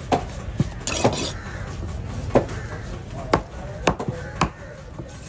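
Large fish-cutting knife chopping yellowfin tuna flesh into chunks on a wooden block: about six sharp chops at uneven intervals.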